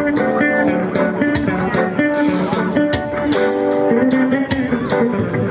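Live instrumental band playing a reggae tune: an electric guitar carries the melody over bass guitar and drums with a steady cymbal beat.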